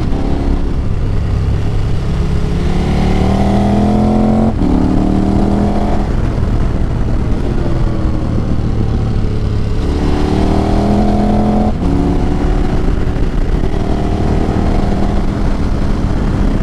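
KTM 1290 Super Adventure R's V-twin engine, running through a gutted catalytic converter and an SC Projects exhaust with the baffles removed, pulling through the gears under acceleration. Its pitch climbs, drops at each upshift (about four and a half, six and twelve seconds in), then climbs again, over a steady rush of wind and road noise.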